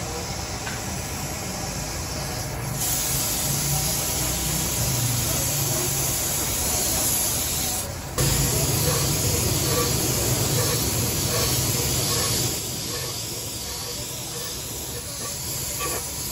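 Compressed-air paint spray gun hissing as paint is sprayed, in two long bursts: the first starts about three seconds in, there is a short stop around eight seconds, and the second ends at about twelve and a half seconds.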